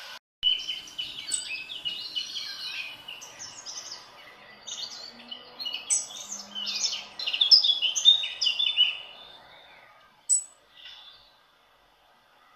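A bird singing a long run of quick, high chirping and warbling phrases, loudest in its second half, stopping a couple of seconds before the end. A single sharp click follows.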